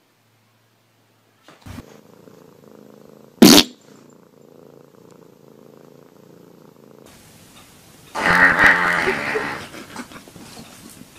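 A single sharp thump about three and a half seconds in, then a domestic cat meowing loudly for over a second near the end.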